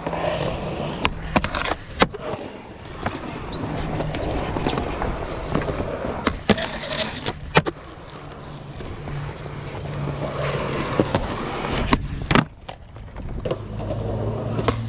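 Skateboard wheels rolling on concrete, a steady grinding rumble, broken by several sharp clacks of the board popping and landing.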